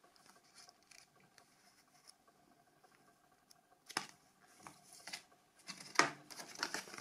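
Paper manuals and leaflets being handled and leafed through: faint rustling at first, a sharp tap about four seconds in, then louder rustles and taps near the end.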